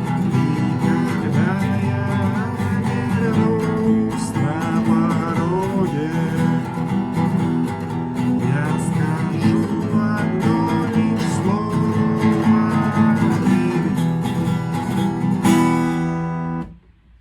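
Acoustic guitar strummed in a steady rhythm. A last chord rings out near the end and is damped suddenly.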